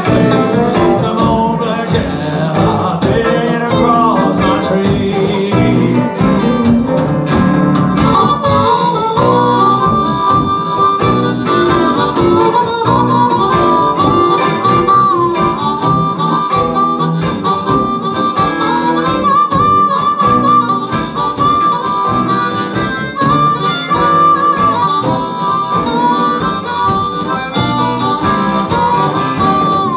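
Amplified blues harmonica played into a cupped microphone, soloing over a live band of electric guitars and drums in a rumba rhythm. About nine seconds in, the harmonica settles into a long, slightly wavering held high note that runs through most of the rest.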